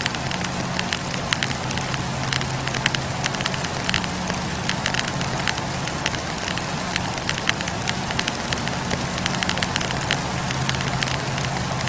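Wood campfire burning, with many irregular sharp crackles and pops from the burning logs over a steady rushing noise and a low steady hum.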